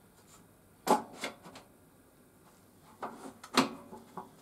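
A few short, sharp knocks and clicks from wood and table-saw fittings being handled, the two loudest about a second in and about three and a half seconds in. The saw's motor is not running.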